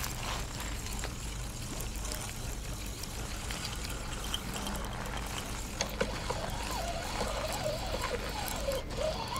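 Water trickling and sloshing while a crucian carp is played in on a spinning rod, with a faint click or two. From about six seconds in, faint wavering tones come in over it.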